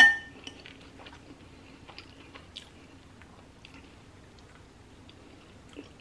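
A metal spoon clinks once, sharply, against a ceramic soup bowl and rings briefly. Faint small clicks of eating and handling food follow.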